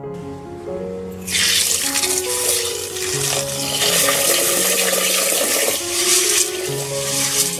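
Tap water pouring into a stainless steel pot of mung beans as they are rinsed. It starts suddenly about a second in, over soft piano music.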